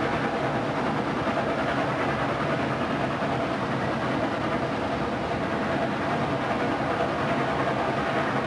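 Steady running noise of a train in motion, from a sound-effects recording dubbed over the film rather than the train's own live sound.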